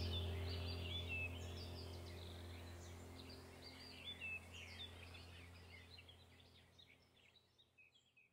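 Relaxation background track of bird chirps over a low steady drone, fading out gradually to near silence by the end.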